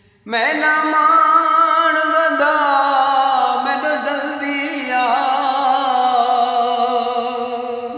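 A man's voice singing one long, wordless held note of a Saraiki song, starting about a quarter second in and stepping down in pitch twice along the way.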